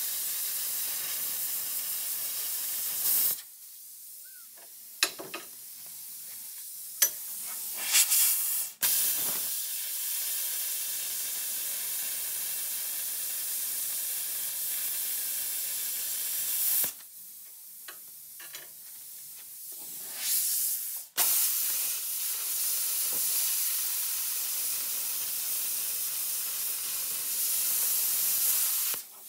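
Handheld plasma cutter cutting steel plate: a steady, loud hiss of the arc and air jet that stops and restarts several times, with a few short bursts in between, as the torch is lifted and restarted along the cut.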